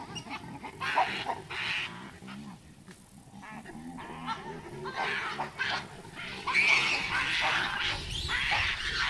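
Chacma baboons calling: repeated harsh calls, with lower pitched calls between about two and four seconds in and louder, denser calling over the last few seconds.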